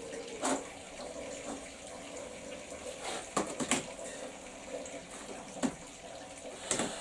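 Water running and splashing steadily, with a few sharp clicks or knocks of metal along the way.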